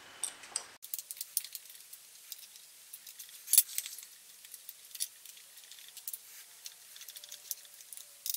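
Small metal clicks, taps and rattles of bolts, a hex key and the aluminium housing of an outboard motor being handled and pressed into place while its screw holes are lined up, with a louder clack about three and a half seconds in.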